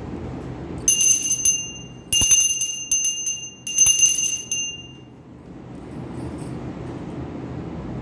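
Small puja hand bell rung in three bursts of rapid clapper strikes with a bright, high ring. The ringing dies away about halfway through, leaving a low steady hum.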